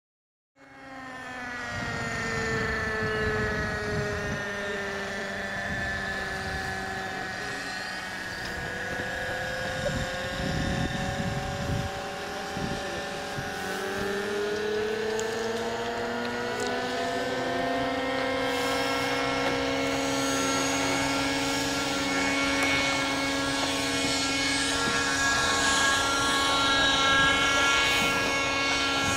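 Saito four-stroke model aircraft engine in an RC Hawker Hurricane, running steadily. Its note sags and then climbs again partway through as the throttle is moved.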